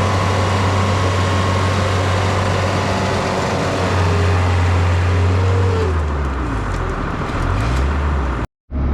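Farm machine's diesel engine running steadily with a strong low hum. About six seconds in, the engine note drops lower, and the sound cuts off suddenly near the end.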